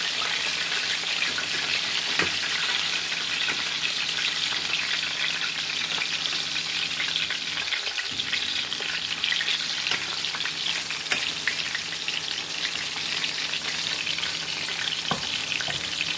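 Breaded chicken fillets shallow-frying in hot oil in a stainless steel pan, a steady crackling sizzle, with a couple of light knocks about two seconds in and near the end.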